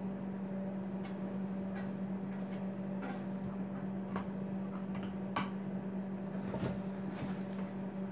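A steady low electrical hum, with scattered small clicks and taps from welding gear being handled and one sharper click about five seconds in. No arc is struck.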